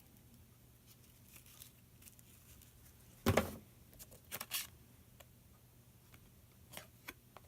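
Handling noises from unboxing a trail camera package: a knock or rustle of packaging about three seconds in, a few quicker clicks a second later, and a small click near the end, over a faint steady hum.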